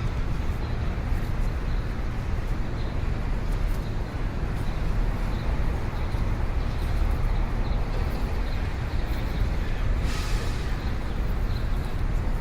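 City street ambience: a steady rumble of passing traffic, with a brief hiss about ten seconds in.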